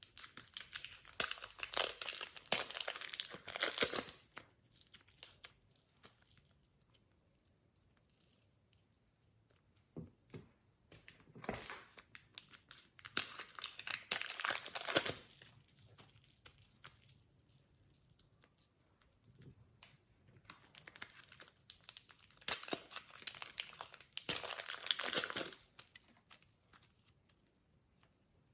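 Glossy slime being handled, with crinkly crackling in three separate bursts of a few seconds each.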